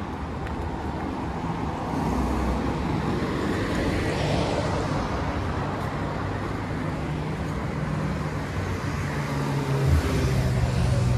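Road traffic on a busy urban main road, with cars passing steadily. A deeper engine hum grows louder near the end.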